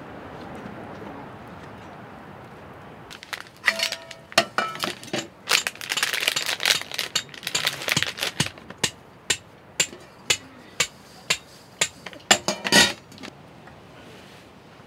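Stainless steel plates and chopsticks clinking and clattering as tableware is handled. A rapid run of sharp clinks, some with a brief ring, starts about three seconds in and stops shortly before the end.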